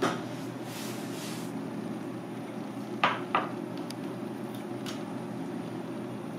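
A stainless steel tray knocks twice in quick succession against the counter about three seconds in, with another sharp knock at the very start, over a steady low kitchen hum.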